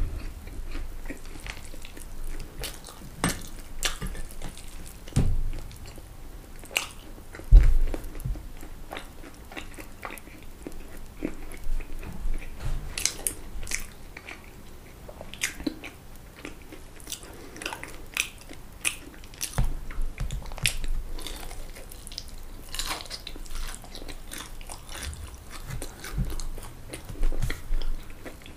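Close-miked eating: biting and chewing crisp fried food, with irregular crunchy crackles and a few dull low thumps.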